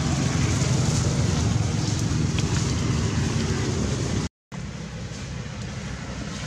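Steady low rumbling background noise with a hiss on top, with no animal calls standing out. It cuts out completely for a moment about four and a half seconds in, then carries on slightly quieter.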